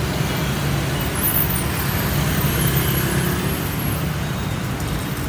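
Road traffic noise: a motor vehicle engine running at a steady low drone under a constant hiss of street noise.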